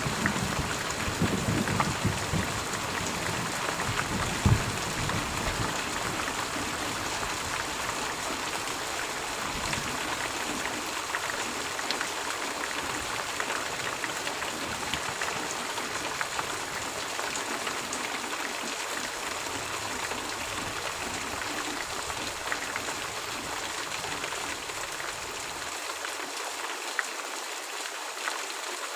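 Steady heavy rain, a dense even hiss with fine pattering drops. A low thunder rumble dies away over the first few seconds.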